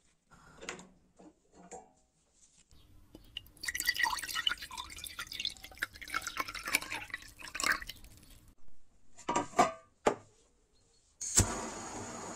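Liquid poured into a ceramic bowl, splashing and trickling for about six seconds. Near the end a gas torch is lit with a sharp pop and then hisses steadily.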